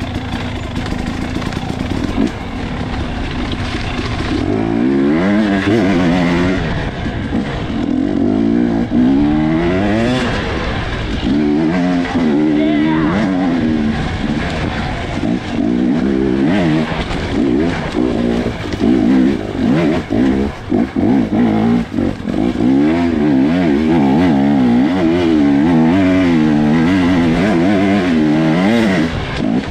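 Off-road racing motorcycle engine, heard from the rider's helmet camera, revving up and down constantly as the throttle is worked through the woods. There are a few brief throttle cuts about two-thirds of the way through.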